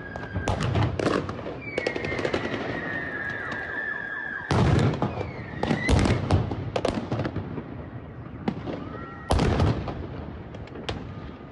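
A dozen or so sharp bangs of gunfire and blasts, some in quick clusters, the loudest two about four and a half and nine and a half seconds in, as a street protest is fired on. A thin high whistle-like tone wavers behind them.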